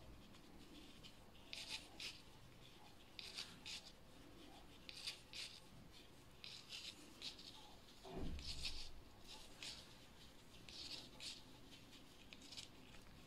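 Steel knitting needles faintly clicking and scraping against each other and the yarn as purl stitches are worked, a short scratchy pair of ticks about every second and a half. A low thump about two-thirds of the way through.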